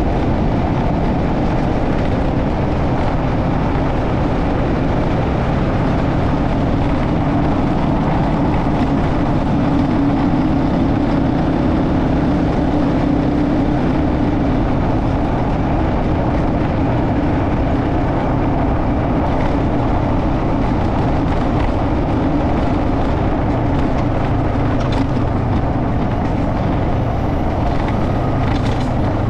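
Motorcycle riding along a road at a steady pace: a continuous engine and road-noise rumble with no change in speed.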